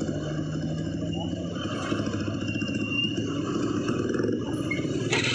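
Road traffic with heavy-vehicle engines running, a dense low rumble, with a steady low drone for the first second and a half and a short burst of noise near the end.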